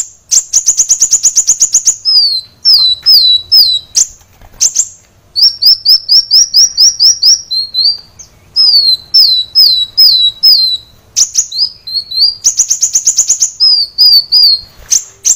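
Kolibri wulung sunbird singing loudly and continuously. Its song is a high-pitched string of rapid trills and runs of quick down-slurred notes, with brief pauses between phrases.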